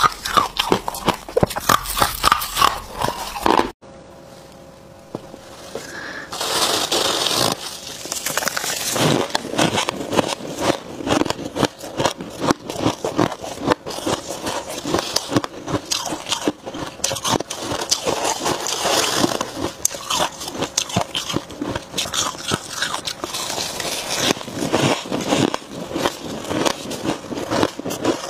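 Freezer frost crunching as it is bitten and chewed: dense, rapid, irregular crunches. They break off sharply about four seconds in and start again about two seconds later.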